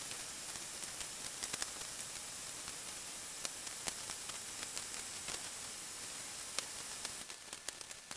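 Steady hiss with scattered small clicks and ticks as pieces of blue painter's tape are torn off and pressed onto paper plans laid on foam board.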